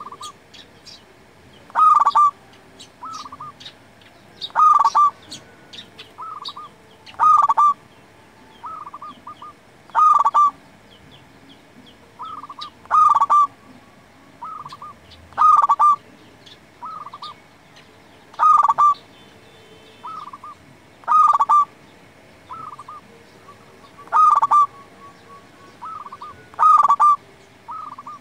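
Zebra dove (perkutut) singing: a loud, quick run of cooing notes repeated about every two and a half to three seconds, ten times, each followed by a few softer coos.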